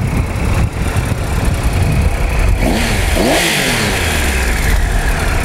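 2013 Triumph Tiger Explorer's 1215cc liquid-cooled inline three-cylinder engine running at idle, revved up and back down once about three seconds in.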